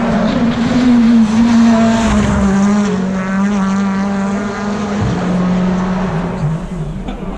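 BTCC touring cars racing past at speed, engines at high revs, their pitch dropping as they go by; loudest about a second or two in.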